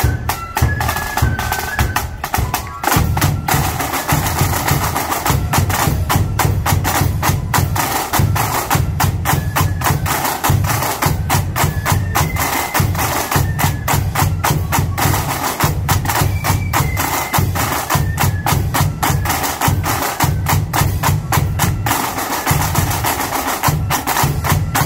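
Marching flute band in full cry: a rank of snare drums rattling out a fast, dense march rhythm over heavy bass drum beats, with a thin high flute melody heard at times above the drums.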